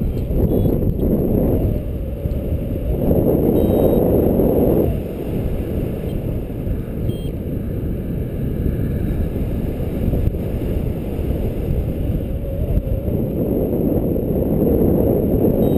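Airflow buffeting the microphone of a paraglider pilot's camera in flight: a steady low rush of wind that swells louder around the start, again about three to five seconds in, and once more near the end.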